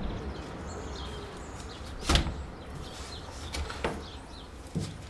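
A sharp knock about two seconds in and a few lighter clicks near the end, over a steady low rumble with faint high chirps.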